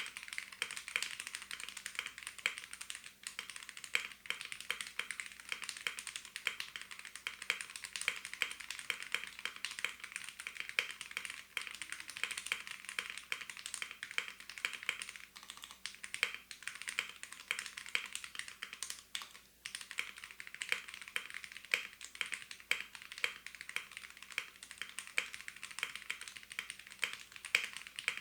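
Typing sound test on a Womier (Gamakay) K87 mechanical TKL keyboard with Gateron switches and an acrylic case, fitted with OEM-profile PBT keycaps: a fast, continuous stream of key clacks, neither high-pitched nor deep.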